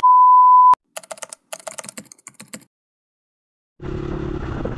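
A steady test-card beep lasting under a second, followed by a run of faint, scattered clicks like typing and then silence. About a second before the end, the dirt bike's engine and wind noise come in, steady and moderate.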